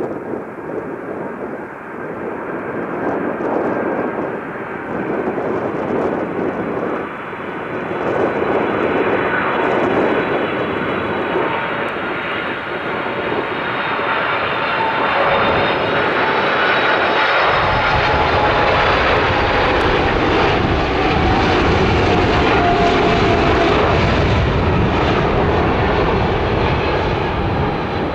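Jet airliner engines growing louder, with a whine of several tones that slowly fall in pitch. A deep rumble joins about two-thirds of the way through and stays to the end.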